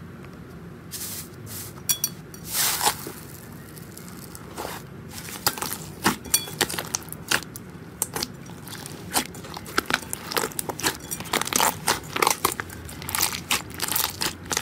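Hands poking and squeezing a glossy pink slime, giving irregular sharp pops and crackles of trapped air. The pops come sparsely at first and thicker from about halfway through, over a steady low background noise.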